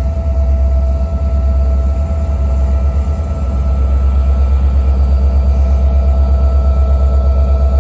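Diesel locomotive engine running with a deep, steady rumble and a faint steady whine, settling into an even pulse about halfway through.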